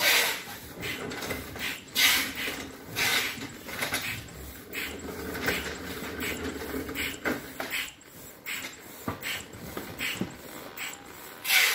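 A bellows foot pump pressed by hand, pushing air through its hose into an inflatable vinyl float: a series of airy puffs at uneven intervals, one per stroke.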